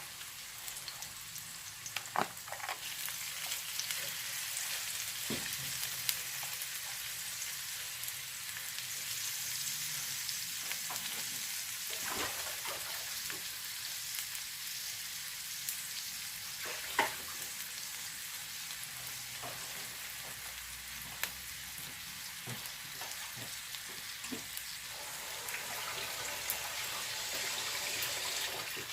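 Food frying in a pan with a steady sizzle, and a few sharp clicks of a utensil against the pan, the loudest about 17 seconds in.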